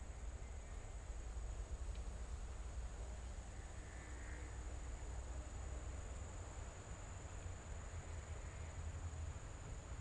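Insects chirring in one steady, high-pitched drone, over a low, uneven rumble.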